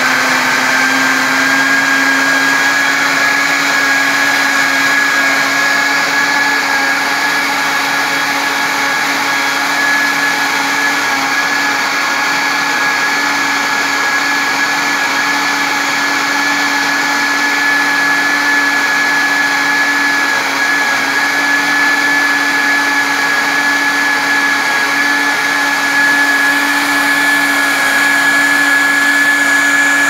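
Mondial L1200 1200 W six-blade blender motor running at speed, blending frozen strawberries with milk. A steady whine rises slightly in pitch at the start as the speed dial is turned up, then holds steady.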